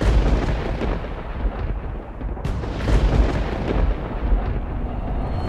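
Deep, continuous rumbling with heavy booms, like rolling thunder.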